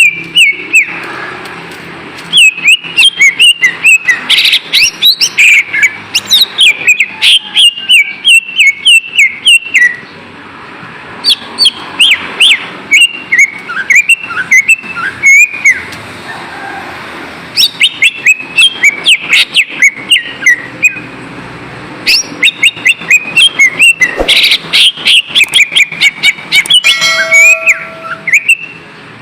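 Greater green leafbird (cucak ijo) singing: loud, rapid runs of sharp chirps and whistled phrases in several bouts, with short pauses between them.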